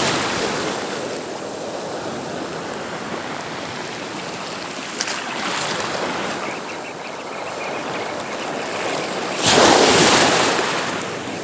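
Sea waves washing onto the beach in a continuous rushing wash, with one bigger wave breaking near the end.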